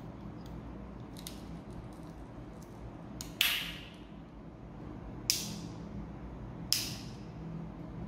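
Victorinox SwissChamp Swiss Army knife tools snapping into place against their backsprings. Three sharp metallic snaps, each with a brief ring, come in the second half, with light clicks of the tools being handled between them.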